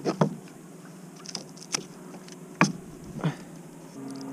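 A hooked little tunny (false albacore) splashing at the surface alongside a plastic kayak as it is drawn in by hand: about six short, sharp slaps and knocks at irregular intervals.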